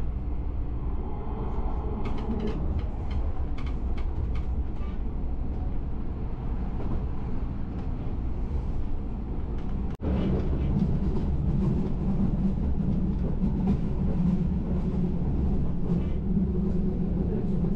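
Passenger train running, heard from inside the carriage: a steady low rumble of wheels on track with faint scattered clicks. The sound drops out for an instant about ten seconds in, and after that a steady low hum is stronger.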